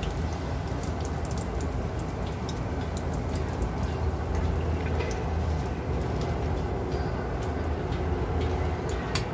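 Dough cakes frying in oil on low heat: a steady sizzle with scattered small crackles and pops over a low steady hum, and one sharp click near the end.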